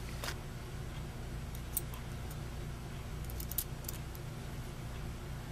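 A few light clicks and rattles of small RC crawler chassis parts handled and fitted together in the fingers, with a short cluster of clicks about three and a half seconds in, over a steady low hum.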